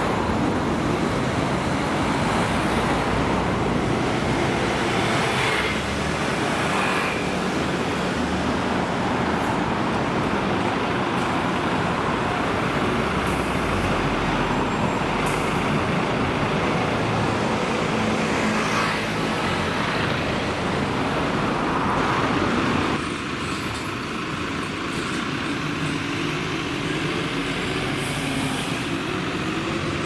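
Street traffic with RATP city buses driving past, their engines running over the hiss of tyres and other cars. About three-quarters of the way through the sound suddenly gets quieter, and near the end an engine note rises as a bus pulls away.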